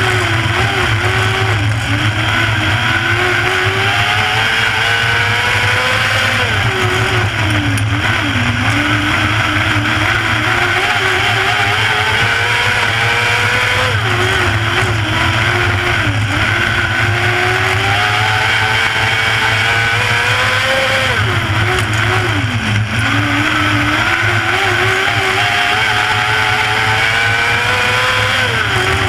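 Wingless 600 micro sprint car's 600cc motorcycle engine at racing speed, heard from on board the car. The engine pitch climbs steadily down each straight and drops sharply into each turn, over and over, lap after lap.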